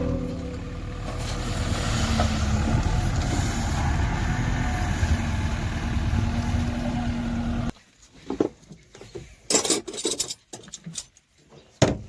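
JCB 3DX backhoe loader's diesel engine running steadily on the move, cutting off abruptly about eight seconds in. Then scattered short knocks and clicks.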